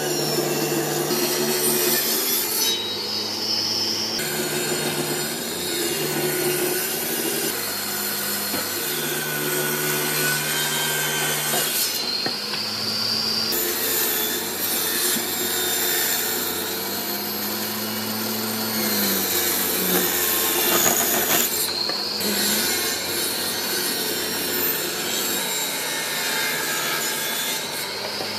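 Table saw running and ripping softwood boards, the blade hissing through the wood. The motor tone shifts as each cut starts and ends, and sags briefly under load past the middle.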